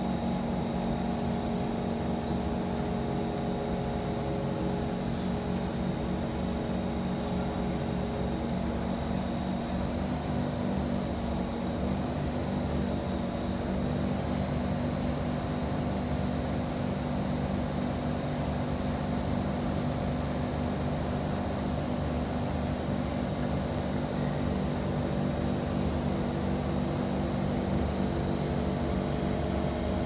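Steady hum inside a stationary Kawasaki Heavy Industries C151 metro train with its doors closed: the onboard equipment running evenly, with several low and middle held tones and a faint high whine.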